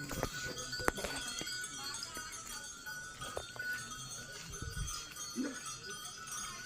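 A goat bleats once, briefly, about five seconds in, with a few sharp clicks near the start.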